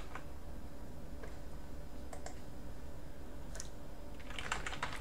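Computer keyboard typing: a few scattered key clicks, then a quick run of keystrokes near the end.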